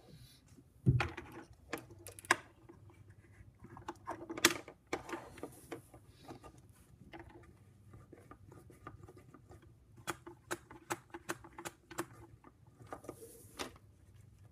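LEGO Technic pneumatic parts being handled on a wooden desk: scattered plastic clicks and taps as tubing is pushed onto the cylinders and pumps. There is a louder knock about a second in and a quick run of clicks a little past the middle.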